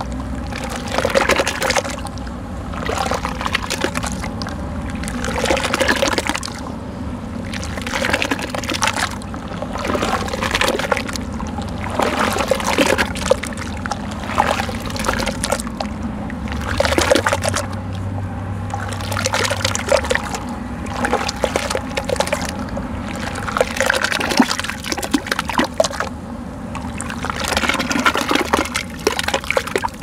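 Hands sloshing and swishing wet sand through muddy, foamy water in a plastic tub: irregular splashing swells every second or two.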